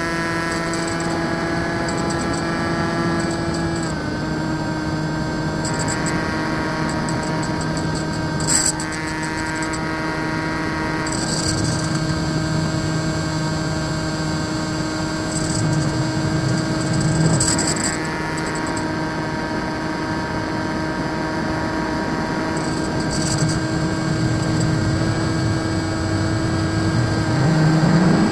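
Brushless electric motor and propeller of a foam RC model plane running at steady cruise throttle, heard from the onboard camera as a steady whine. The pitch steps down slightly about four seconds in.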